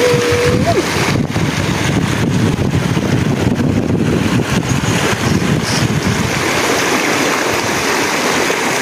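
Steady rushing of water flowing through a shallow rice-paddy channel into a mesh tube fish trap, with wind buffeting the microphone.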